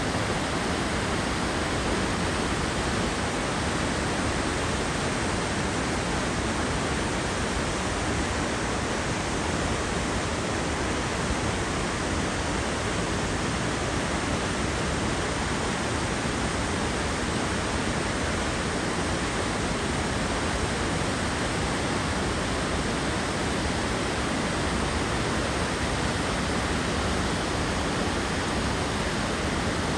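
Waterfall: falling water making a steady, even rushing noise.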